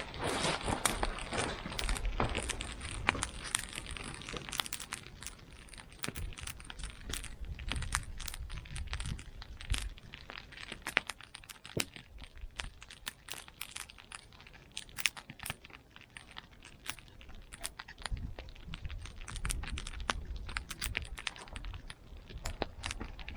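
Campfire crackling: irregular sharp pops and snaps. A denser rustling shuffle sits under them in the first few seconds.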